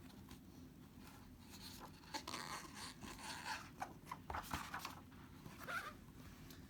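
Faint paper rustling and scraping: a picture book's pages being handled and turned, in a run of irregular soft scrapes in the middle of the stretch.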